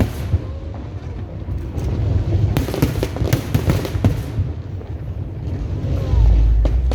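Fireworks display: a rapid crackle of many small bangs over a deep rumble, thickest in the middle, with a heavy low boom near the end.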